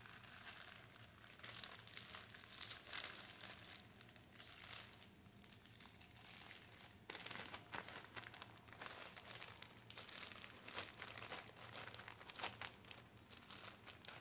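A white disposable pad-disposal bag and a wrapped menstrual pad handled and folded over the hand, crinkling softly and unevenly, busier from about seven seconds in.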